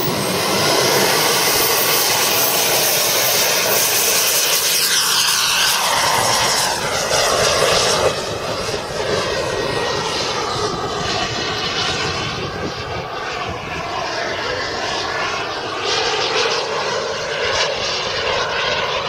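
Gas turbine of an RC model jet (an ATJ turbine) running in flight, with a high steady whine over a loud rushing noise. About eight seconds in it drops slightly and begins to sweep up and down in tone as the jet passes by.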